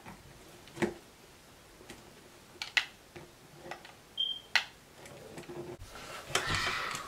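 Light plastic clicks and taps, a second or two apart, as a built toy brick spaceship is handled and pressed onto its battery-powered light-up base on a tabletop. A brief high tone sounds just after four seconds in.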